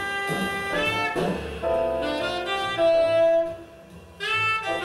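Jazz music: a solo horn plays a slow melody of held notes, holding one long loud note about three seconds in, then pausing briefly before the next phrase starts near the end.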